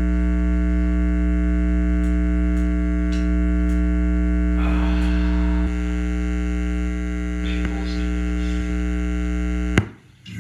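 Steady mains hum from an amplifier and effects-pedal rig idling before playing, a buzz with a stack of even overtones, with faint rustling of handling twice in the middle. Near the end it cuts off with a click and the level drops sharply.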